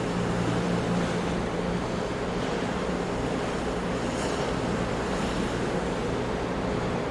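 Ocean surf: a steady wash of breaking waves, with no single crash standing out.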